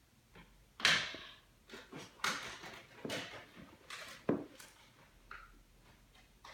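Packaging and a mini helmet being handled during an unboxing: a series of short rustles and light knocks, the loudest about a second in.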